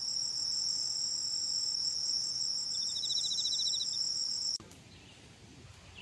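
Insects singing in a steady, high-pitched unbroken drone, with a short rapid trill joining about halfway through. The drone cuts off suddenly about three-quarters of the way in.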